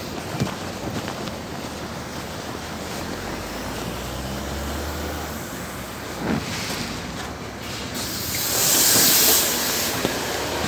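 LiAZ 6213.21 city bus running at a stop amid street traffic, with a thump about six seconds in. About eight seconds in comes a loud compressed-air hiss from the bus's pneumatics, lasting about a second and a half.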